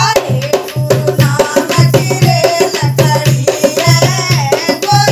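Women singing a Hindi devotional bhajan to a dholak played by hand, with a steel spoon tapped on the drum for a clicking beat. The dholak's low strokes repeat steadily under the voices.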